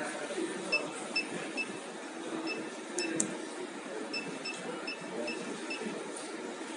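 Short electronic key beeps from a soldering robot's handheld teach pendant, one per key press, about a dozen in irregular runs as the X, Y, Z jog keys are pressed to move the soldering head. They sound over a steady low background noise.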